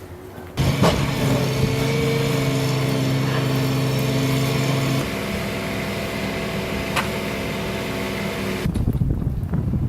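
An engine running steadily; its tone shifts about five seconds in.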